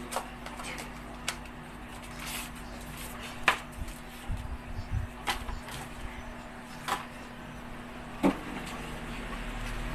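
Packaging being handled as a small white box is opened and its plastic and paper wrapping pulled off and unfolded: a few scattered sharp clicks and taps, the loudest about a third of the way in, with some low bumps just after, over a steady low hum.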